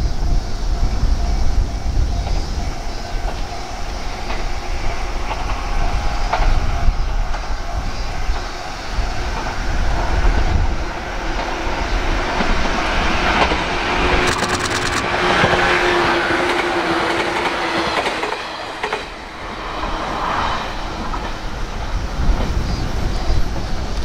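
Shinano Railway 115-series electric train approaching and passing, with rail clatter and a cluster of clicks as it goes by about two-thirds of the way through. A humming tone dips slightly in pitch as it passes. A low wind rumble on the microphone is heaviest in the first half.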